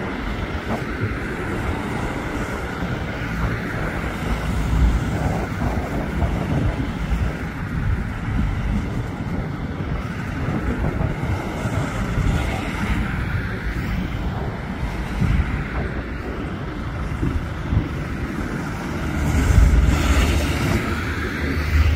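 Wind buffeting the microphone over a steady low outdoor rumble that swells louder near the end.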